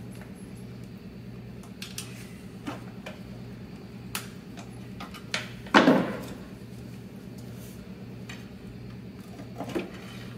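Hand tools clinking against metal as bell-housing bolts are worked loose on a Jaguar E-Type engine, with a short loud clatter about six seconds in as a tool is set down on the engine stand. A steady low hum runs underneath.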